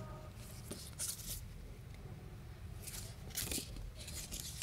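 Paper manual guides and cards being handled, a few short dry rustles of paper.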